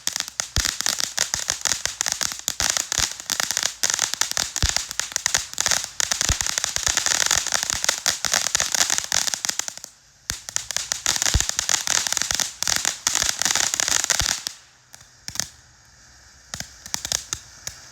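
Ground firework going off with a dense, rapid crackling of many small pops. It breaks off briefly about ten seconds in, crackles again for a few seconds, then dies down to scattered pops.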